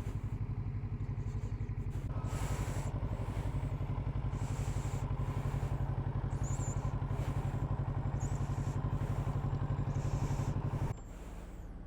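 Kawasaki Z650RS's parallel-twin engine running steadily, getting somewhat louder about two seconds in and dropping abruptly to a quieter note near the end.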